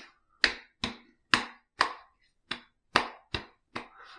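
Palms slapping the cheeks in a run of about eight sharp pats, roughly two a second, patting a post-shave balm into freshly shaved skin.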